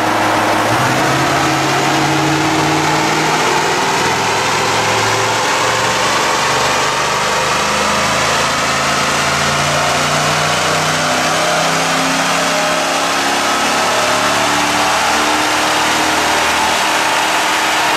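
Ford F-150 SVT Raptor's 6.2-litre V8, breathing through a Stainless Works cat-back exhaust and Airaid cold air intake, running loud and steady under load on a chassis dynamometer, its note climbing slowly through the pull.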